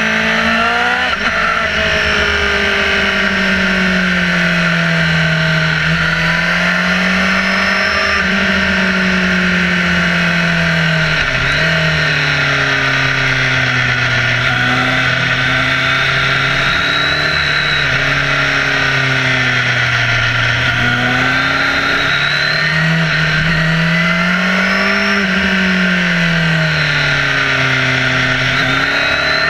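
Motorcycle engine heard from the bike itself while riding through bends, its note rising and falling with the throttle, with a sudden shift in pitch about midway, over steady rushing wind noise.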